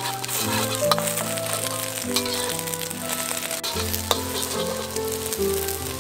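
Eggs sizzling in hot oil in a wok while a metal spatula scrapes and pushes them around, with scattered ticks of metal on the pan. Gentle background music plays underneath.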